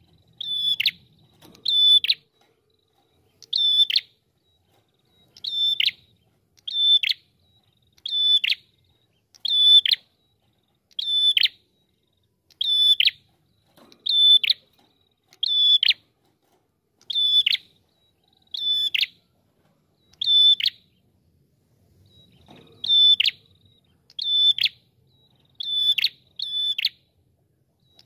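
Red-headed prenjak singing: a loud call repeated about every second and a half, each note held high and then dropping sharply in pitch, with a brief pause a little past two-thirds of the way through.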